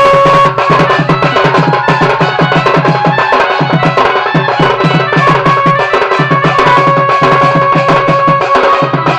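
Sambalpuri dand nacha dance music: fast, steady drum beats under an organ holding long melody notes.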